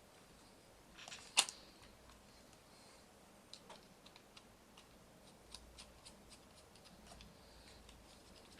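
Small parts of a radio-controlled model car being handled and fitted by hand: scattered light clicks and taps. The loudest click is about a second and a half in, and a run of small ticks follows midway.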